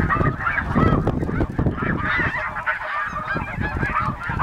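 A flock of snow geese calling: many short, overlapping high yelps in a continuous chorus, with wind buffeting the microphone underneath.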